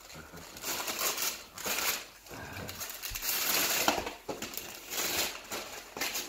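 Gift paper crinkling and rustling in several irregular bursts as a present is unwrapped.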